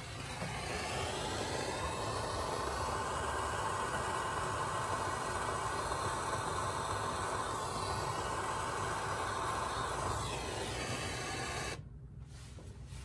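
Gas torch flame hissing steadily as it is played over the bulbs. Its tone shifts near the start and again just before it cuts off, about a second before the end.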